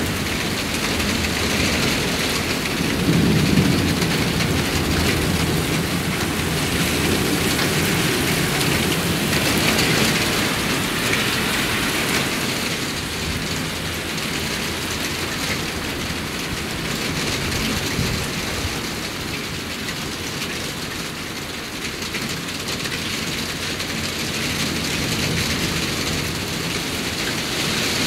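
Heavy thunderstorm downpour: rain falls steadily and hard, with a low rumble of thunder a few seconds in.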